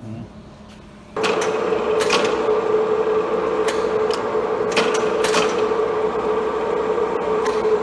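Knuth UFM 4 universal milling machine starting up about a second in, then running steadily with a constant whine and a few sharp ticks.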